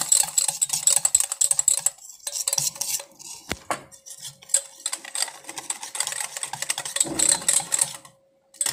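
Wire whisk beating flour batter in a steel bowl: quick, rapid clicking strokes, with brief pauses, stopping shortly before the end.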